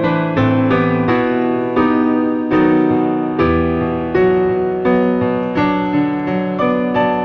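Piano music playing a gentle melody over chords, with a new note or chord struck about every half second.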